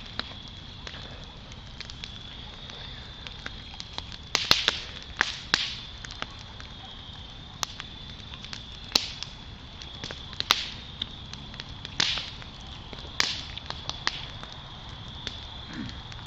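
Campfire wood burning and crackling, with irregular sharp pops, the loudest coming in a cluster about four to six seconds in and then every second or two. A steady high-pitched whine runs underneath.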